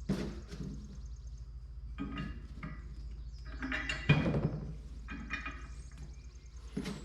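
Irregular knocks and clanks of fertilizer hopper drive parts being handled and fitted during reassembly, the loudest about four seconds in, over a steady low hum.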